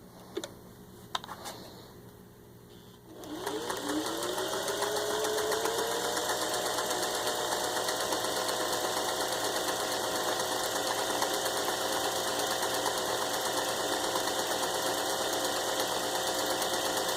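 A few light clicks, then the 1961 Singer 500A Rocketeer sewing machine's rebuilt motor starts about three seconds in, its whine rising as it comes up to speed. The machine then runs steadily at a constant speed, stitching one of its built-in embroidery stitch patterns.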